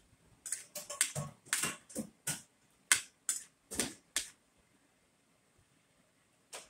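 Metal spoon and fork clinking and scraping against a plate while scooping rice: a quick run of about a dozen clicks in the first four seconds, and one more near the end.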